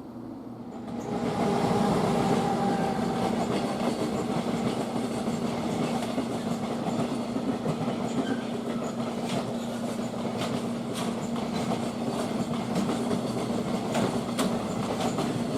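Train running on the rails: a loud rumble comes in quickly about a second in and holds steady, with a steady hum and scattered rail clicks.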